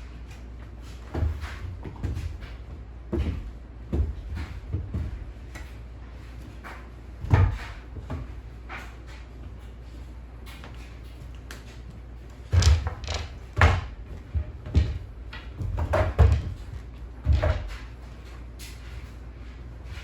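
Irregular knocks and thumps of household objects being handled, a few near the start and a busy cluster in the second half, over a steady low hum.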